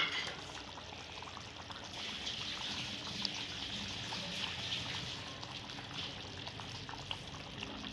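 Chicken cooking in ghee in a pot: a steady sizzle with small crackles, a little louder from about two seconds in. A brief sharp knock right at the start.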